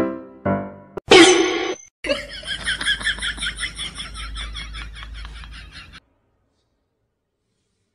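A short vocal cry about a second in, then a person laughing in quick repeated pulses for about four seconds, slowly fading. Silence for the last two seconds.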